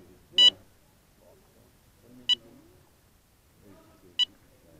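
Three short, high-pitched electronic beeps, evenly spaced about two seconds apart, from a small FPV racing quadcopter sitting on the ground.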